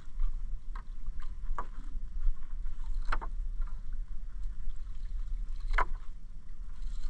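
Wet fishing net being hauled by hand over the side of an outrigger canoe, water splashing and dripping off the mesh into the hull, with sharper splashes about three and six seconds in, over a steady low rumble.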